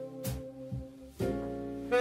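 Live jazz combo playing: saxophone and keyboard holding sustained notes over the drum kit, with a few drum strikes and a new chord coming in a little past halfway.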